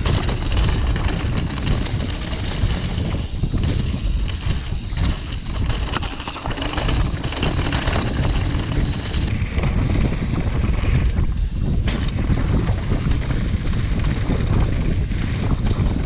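Wind buffeting the microphone of a mountain bike's on-board camera on a fast descent, over the steady rumble of knobbly tyres rolling across dirt and dry leaves, with small clicks and rattles from the bike.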